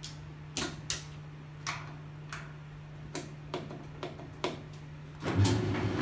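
Whirlpool electric dryer running with its broken door switch held in by hand: a steady low hum with irregular clicks and light knocks. About five seconds in, the hum changes to a louder, rougher rumble.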